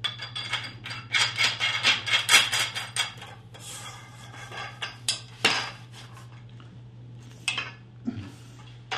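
Metal parts of a surveying prism pole's compression lock clinking and rattling as they are handled, busiest for the first three seconds or so, then a few separate clicks. A steady low hum runs underneath.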